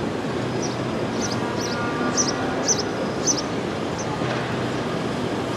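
Steady city street traffic noise with a low rumble. A run of short, high chirps repeats about twice a second through the middle.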